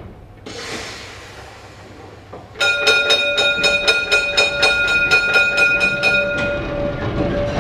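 A tram's warning gong rung rapidly, about five strokes a second, for nearly four seconds, after a short hiss about half a second in. The ringing fades into the low rumble of the tram rolling in on its rails.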